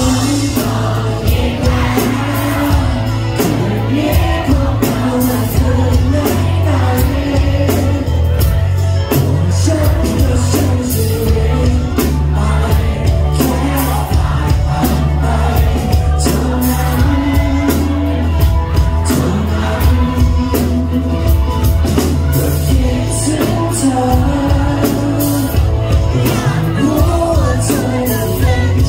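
A live band plays a pop-rock song, with a male lead singer, heavy bass and drums, and a saxophone.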